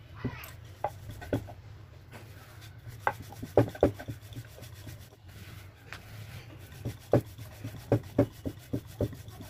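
Wooden rolling pin rolling out dough on a wooden board: rubbing strokes with irregular light knocks and clacks, over a steady low hum.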